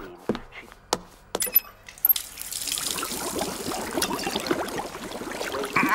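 A few sharp clicks and knocks, then about two seconds in a tap starts running into a sink full of soapy water, with splashing as an arm stirs in it.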